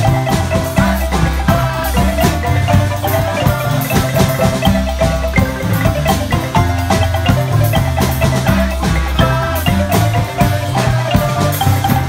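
Marimba ensemble playing live: several wooden marimbas struck with mallets in fast, repeating interlocking patterns over deep bass notes, backed by a drum kit.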